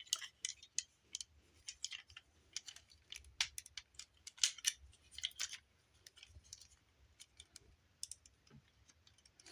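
Plastic parts of a Transformers Deluxe-class figure clicking and knocking while it is transformed and its tabs are pushed into place: light, irregular clicks, a few louder ones in the middle.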